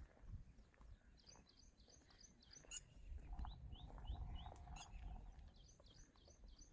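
Faint bird chirping: runs of quick, repeated high notes, about five a second, heard twice, over a low rumble.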